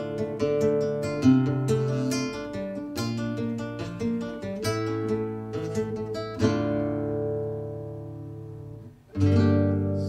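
Acoustic guitar playing a song's instrumental intro, picked notes and strummed chords. About six and a half seconds in, a chord is left to ring and fade away, and a new strummed chord comes in near the end.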